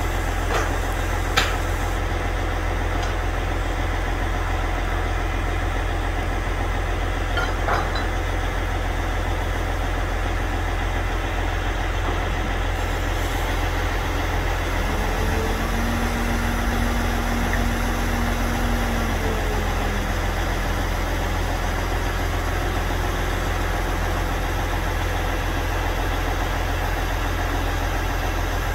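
Heavy truck engine idling steadily, with a few sharp clanks in the first several seconds.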